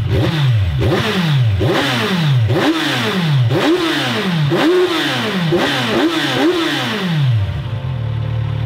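2018 Kawasaki Z1000's inline four-cylinder engine on its stock exhaust, revved in about eight quick throttle blips, each rising and falling in pitch, then settling back to idle near the end. This is the stock exhaust's sound test, which reads 85 dB at idle and 108 dB at the rev limiter.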